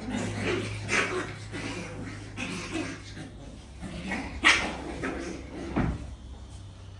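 Puppies play-fighting, giving a string of short barks and yips, loudest about a second in and again midway, with one more shortly before the end.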